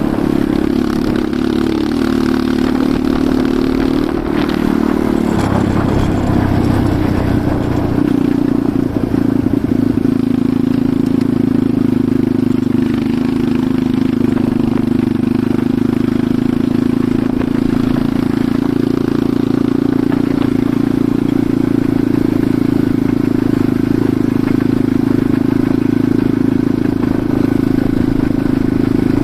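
Enduro motorcycle engine running steadily while riding, its note shifting about five to eight seconds in and then holding even.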